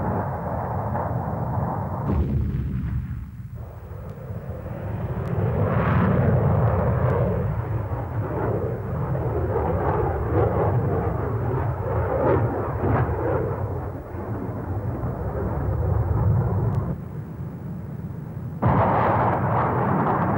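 Fighter jet engines roaring in flight: a dense, deep rumble that cuts abruptly to a new section about two seconds in and again near the end.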